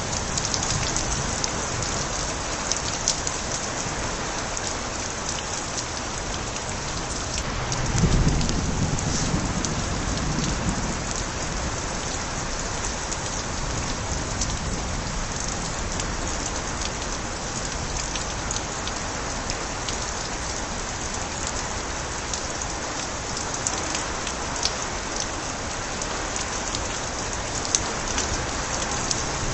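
Steady rain with water spilling off overflowing gutters, many single drops ticking close by. About eight seconds in, a low rumble of thunder swells for a couple of seconds.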